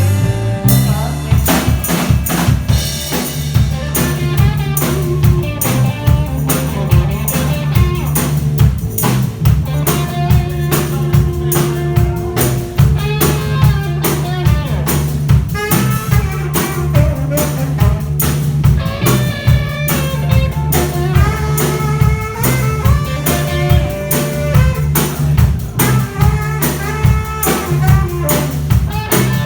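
A live band playing rock music: drum kit keeping a steady beat under bass and guitar.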